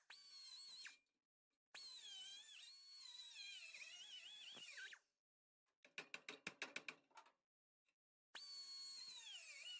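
High-speed power tool whining as it cuts into the Ford Bronco's body sheet metal, its pitch sagging and wavering under load. It stops after about a second, runs again for a few seconds, and starts once more near the end. In the pause comes a quick run of about a dozen sharp metallic taps.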